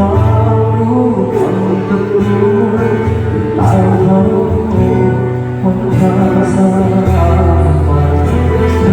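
A song with a man singing over guitar and a heavy, sustained bass line.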